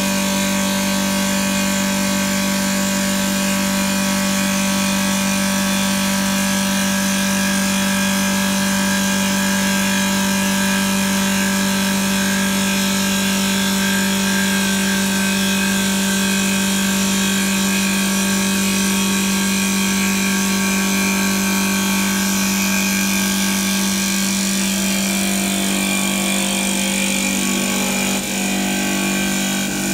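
CNC wood turning lathe running steadily with a strong hum, its double blades cutting a spinning wooden spindle with a continuous hiss of wood shavings. Near the end the sound dips briefly and shifts slightly.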